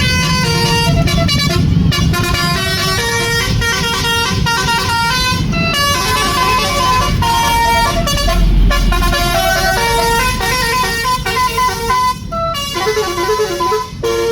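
Tour bus's telolet multi-tone horn playing a fast melody of short stepping notes, with the bus engine running underneath.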